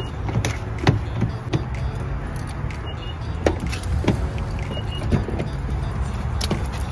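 Scattered clicks and knocks of a car door being opened with keys in hand, over a steady low rumble of wind and handling on the phone's microphone.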